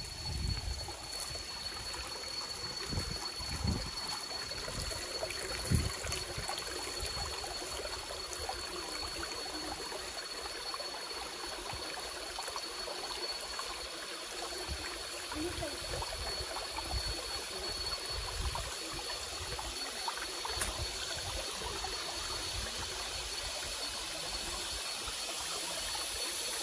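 Shallow rocky creek trickling steadily over stones. A few soft low thumps come in the first six seconds.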